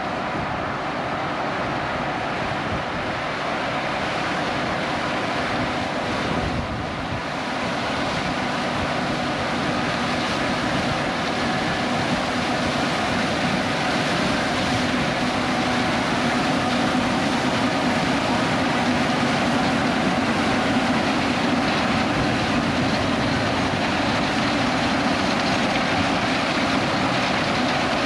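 John Deere X9 1100 combine running under load while harvesting corn: a steady diesel and machinery drone with a held low hum, growing a little louder as it goes.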